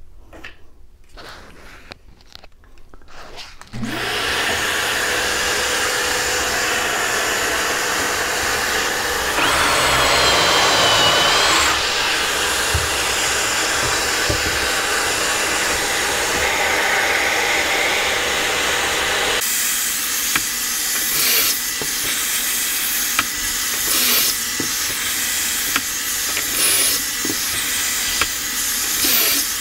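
A dust-collection vacuum on a Kreg pocket-hole jig switches on about four seconds in and runs steadily. Over it, a Ridgid cordless drill bores pocket holes through the jig in repeated bursts, loudest about ten seconds in and recurring every couple of seconds near the end.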